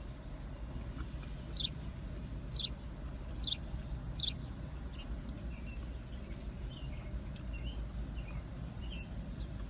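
A bird calling: four sharp, high whistled notes sliding downward, about one a second, then several softer short chirps, over a steady low rumble.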